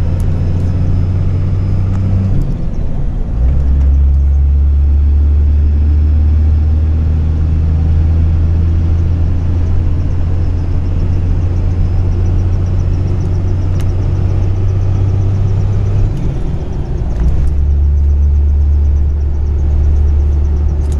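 Pickup truck driving, heard from inside the cab: a loud, steady low engine and road drone that changes pitch twice, a few seconds in and again about three-quarters of the way through.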